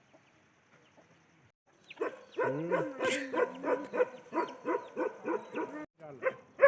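A dog barking in a quick, rapid series of barks, about three a second, starting about two seconds in after a quiet stretch.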